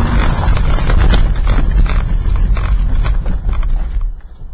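A car running off the road and bouncing across rough grassy ground: loud low rumbling with rapid, irregular knocks and rattles from the body and suspension, heard from inside the car. The rumble dies down near the end as the car slows.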